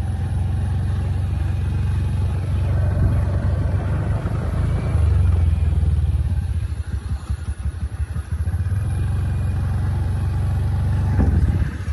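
Motor scooter being ridden along a road, its small engine running under a heavy rumble of wind on the microphone. The rumble turns choppy for a couple of seconds partway through.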